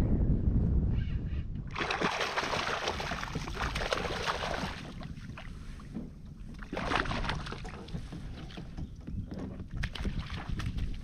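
A hooked fish splashing at the water's surface beside a kayak as it is reeled in: a long spell of splashing starting about two seconds in, then a few shorter splashes. Wind rumbles on the microphone underneath.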